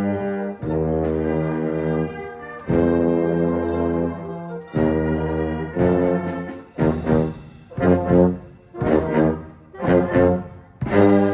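St. Petersburg 202 tuba playing its part of a band arrangement of a film theme: long held low notes, then, about halfway through, a run of short, separately tongued notes about one a second, and a new held note starting near the end.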